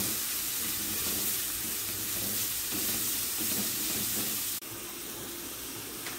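Grated carrot, onion and garlic sizzling in hot oil in a nonstick frying pan as they are stirred with a wooden spoon. The steady sizzle drops suddenly to a quieter level about four and a half seconds in.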